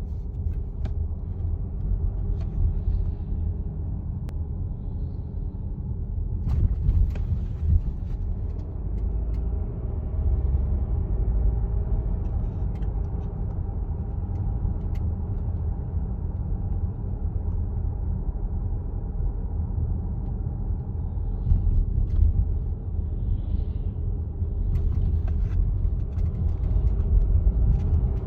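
2018 Volvo XC60 running, a steady low rumble with sharp ticks at irregular intervals. The ticking comes from the lower engine mount on the driver's side, which the owner cured by replacing that mount.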